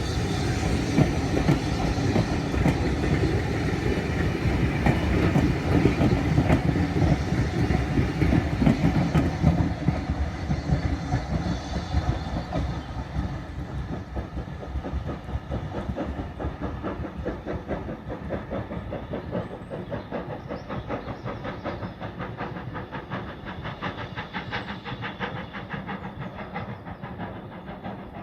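A heritage passenger train running past, its wheels clicking rhythmically over the rail joints. It is loudest for the first several seconds, then fades steadily as it draws away.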